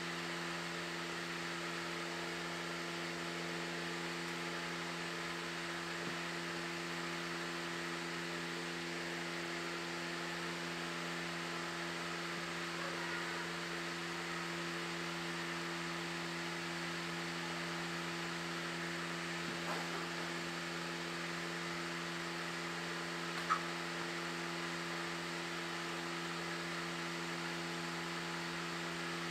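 Steady low hum made of several constant tones under an even hiss, like a fan or electrical appliance running; one short click about three-quarters of the way through.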